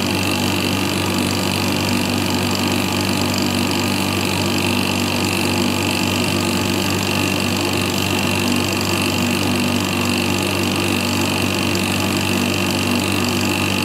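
Damp-proof course injection pump running steadily, a constant mechanical hum, while it pumps damp-proofing fluid into the brickwork through the injection lances.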